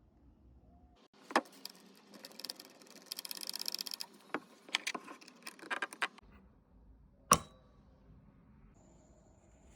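Handling of the lock tenon's small male and female parts: a scattering of sharp clicks and a fast rattling run in the middle, with the loudest click about seven seconds in.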